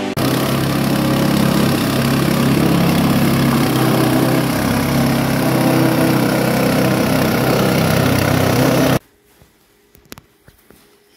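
Small petrol engine driving a galangal and lemongrass chopping machine, running steadily at speed while chopped material pours from the outlet. The sound cuts off suddenly about nine seconds in, leaving only faint clicks.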